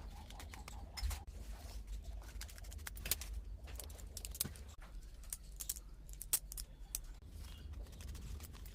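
Scattered light clicks and rustles of small objects being handled, over a faint low hum.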